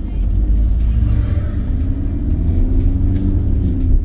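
Car engine and tyre noise heard from inside the cabin while driving: a steady low rumble, with the engine note rising from about a second in as the car accelerates.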